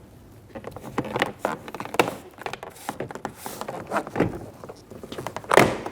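Hands working the door-handle release cable and plastic door panel: a string of light clicks, knocks and rustles, with a louder knock near the end.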